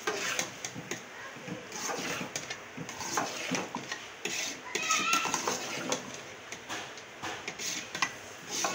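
A metal slotted spoon scraping and clinking against the sides of a metal cooking pot in irregular strokes, stirring rice into sugar syrup.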